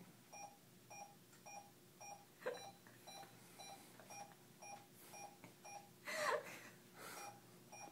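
Bedside heart monitor beeping steadily, about two beeps a second, each beep marking a heartbeat. A short burst of laughter breaks in about six seconds in.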